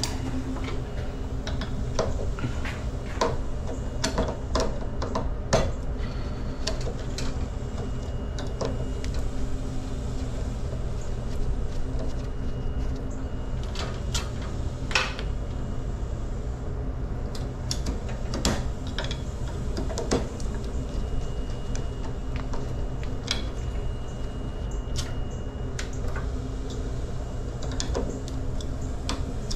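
Scattered light clicks, taps and knocks of hand tools and metal parts being handled while wiring a circuit breaker into an electrical panel, over a steady low hum.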